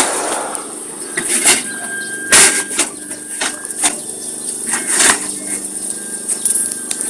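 Gaifeng paver laying machine's engine running steadily, with irregular sharp clacks of concrete paving bricks knocking together as they slide down the machine's laying bed.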